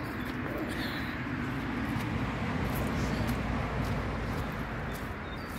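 Road traffic: a vehicle passing by, its steady noise swelling towards the middle and fading again.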